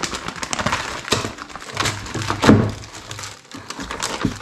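Plastic parts bags crinkling and rustling as they are handled and pulled out of a cardboard kit box, with light knocks of parts against the box; the loudest knock comes about two and a half seconds in.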